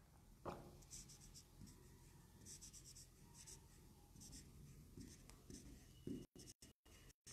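Faint handwriting: short runs of light scratchy strokes from a pen on a writing surface, coming every second or so, with a soft knock about six seconds in.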